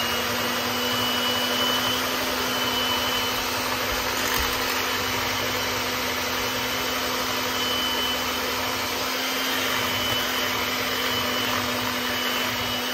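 Electric hand mixer running at a steady speed with an even motor whine, its beaters whipping thick mascarpone cream in a plastic bowl.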